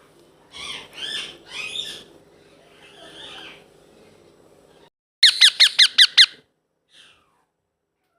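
Baby blue Indian ringneck parakeet calling: three harsh squawks in the first two seconds and a softer call, then about five seconds in a quick run of about seven sharp, downward-swooping chirps. A low steady hum underlies the first five seconds and stops.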